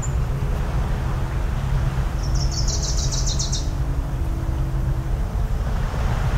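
Steady low rumble of waves along the shore with a faint distant hum, and around the middle a bird's rapid rattling call of about ten high notes lasting a second and a half.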